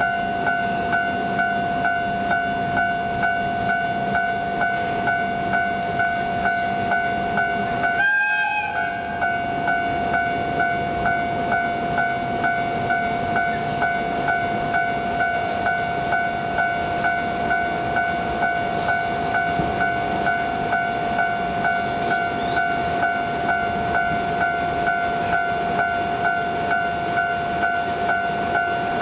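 Japanese level-crossing warning bell ringing in an even, rapid repeating ding, about two strokes a second, the rumble of a train underneath. About eight seconds in, a short horn blast of about a second cuts across it.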